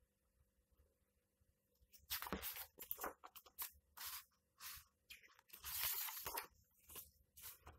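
Pages of a large hardcover book being handled and turned: a series of short paper rustles and swishes starting about two seconds in, the longest one about two-thirds of the way through.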